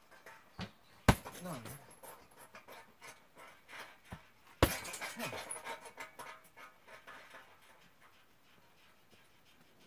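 Two hard strikes on a hanging heavy punching bag, about three and a half seconds apart, each one a sharp thud with a short ringing tail.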